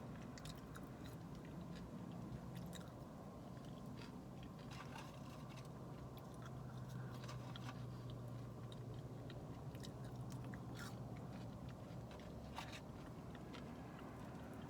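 Close-miked eating of fried fast food: quiet bites, crunches and chewing, with scattered small crackles and a faint steady low hum underneath.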